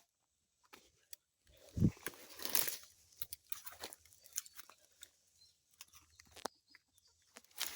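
Footsteps pushing through dry brush and leaf litter, twigs and leaves crackling irregularly, with one heavier thud about two seconds in.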